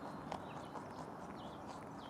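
Netherland Dwarf rabbit crunching on a carrot: a few crisp, irregular chewing clicks over a steady background hiss.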